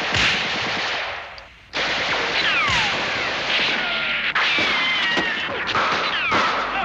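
Film soundtrack gunfight: dense rifle and machine-gun fire with several short falling whines through it. The firing dies down briefly about a second in, then cuts back in abruptly.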